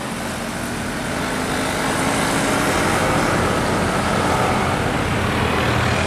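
Road traffic: the engines and tyres of passing vehicles, a steady hum that grows louder over the first couple of seconds, then holds.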